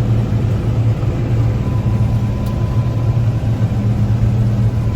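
Diesel engine of a heavy farm machine running at a steady speed, a low, even drone.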